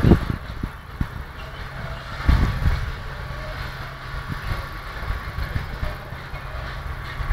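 Railway wagons rolling past with a steady low rumble, broken by clusters of heavy knocks at the start and again about two and a half seconds in, then lighter scattered knocks.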